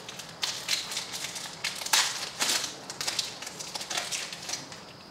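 Foil trading-card pack wrapper being torn open and crinkled: a string of crackling rips, loudest about two seconds in.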